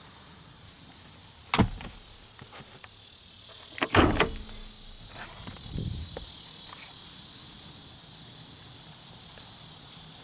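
Two loud latch clunks from a pickup truck, about one and a half seconds in and again, doubled, about four seconds in, over a steady high insect chirring.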